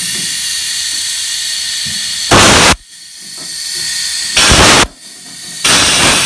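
Compressed-air blow gun hissing steadily into a freshly built 10AN stainless braided oil line, blowing out black rubber particles left from cutting and assembling the hose. Three much louder full blasts of air come about two and a half, four and a half and six seconds in, the last the longest.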